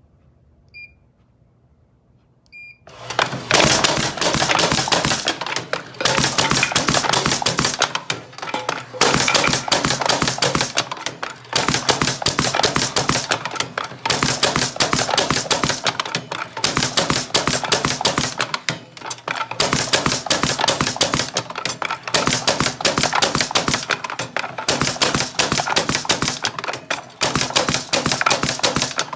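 An Eclipse 300 automatic TRK clipping machine: two short beeps from its touchscreen control panel, then from about three seconds in a loud, rapid clatter as it feeds and drives the metal clip strip, in runs of two to three seconds with brief pauses between.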